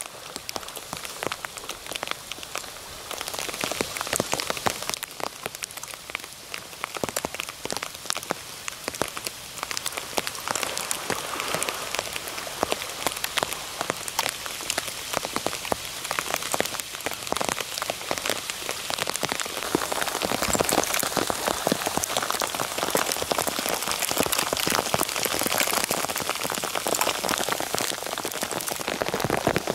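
Hailstones falling on a sandy beach in a dense patter of countless small ticks. The patter grows heavier and louder about two-thirds of the way through.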